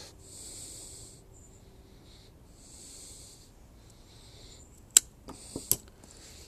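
Slow breaths through the nose close to the microphone, one about every two and a half seconds. About five seconds in come two sharp snips of pruning cutters, the first the louder.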